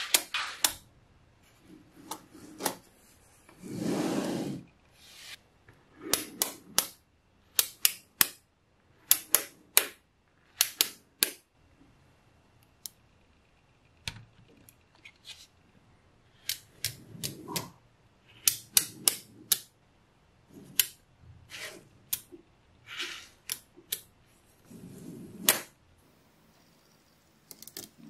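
Small magnetic balls clicking as they snap onto each other, in quick clusters of sharp clicks with short pauses between. A few brief scraping rattles come in among the clicks.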